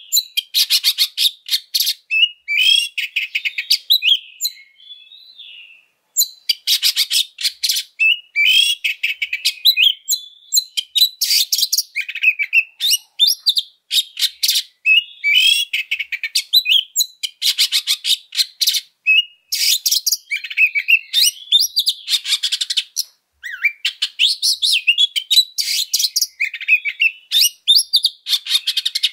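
Oriental magpie-robin singing an aggressive fighting song: fast runs of harsh, clicking notes alternate with short whistled phrases. It breaks off briefly about five seconds in and again near the twenty-third second.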